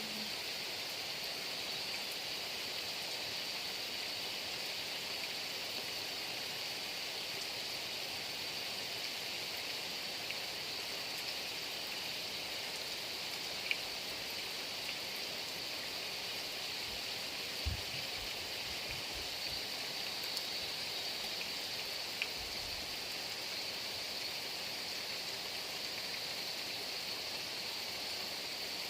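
Heavy rain falling steadily, an even hiss, with a few sharp drips or clicks and some soft low thumps around the middle.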